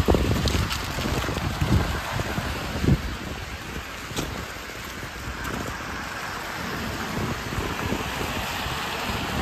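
Wind buffeting the microphone and footsteps on icy slush, with irregular low bumps and a few sharp crunches in the first few seconds, over a steady wet hiss that carries on evenly after that.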